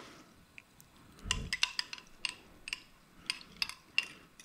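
A spoon clinking and tapping against a bowl a dozen or so times as chopped tomato, onion and cilantro dressing is scraped out of it onto a salad, starting about a second in, with a soft thump as the first of it lands.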